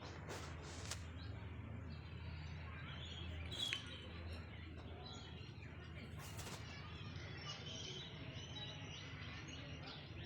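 Faint bird chirps over a steady low hum.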